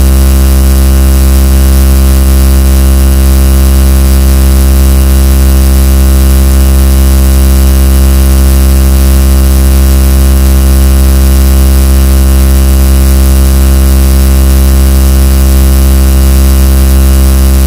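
A very loud, unchanging drone: a deep hum with many steady tones layered over a hiss, held at the top of the level without a break.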